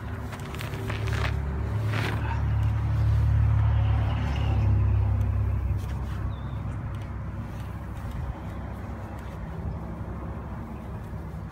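A motor vehicle passing: a low rumble that swells over the first few seconds, peaks around three to five seconds in, then fades back into a steady low hum.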